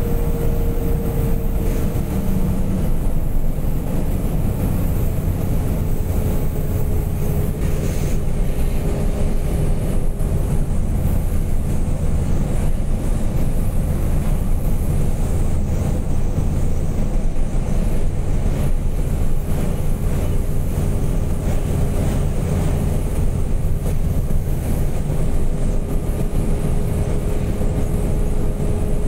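Fully loaded Chinese-made truck driving at road speed, heard from inside the cab: a steady low engine and road drone with a faint whine.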